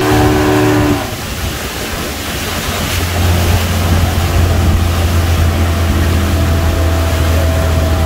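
Yamaha Enduro outboard motor running hard, driving a small open boat at speed, with the rush of wind and the churning wake. Its note shifts about a second in, then settles into a steady low drone.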